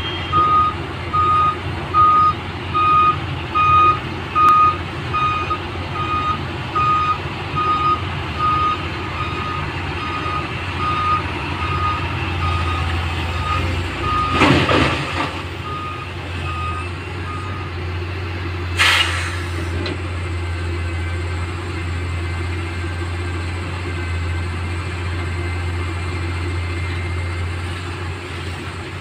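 Reversing alarm of a 12-wheeler tipper truck beeping about one and a half times a second as it backs through the water into loading position, fading and stopping a little past halfway, over the steady rumble of the diesel engine. Two short air hisses from the air brakes come around the middle.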